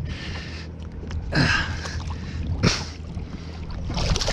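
Hooked bass thrashing at the water's surface beside the boat, throwing a few short splashes, the last near the end, over a steady low hum.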